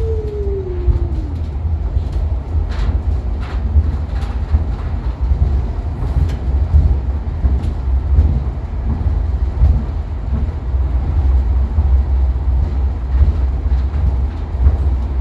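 Cable-hauled airport people-mover tram running on rails, heard from on board: a steady low rumble with scattered sharp clicks. A short whine falls away about a second in.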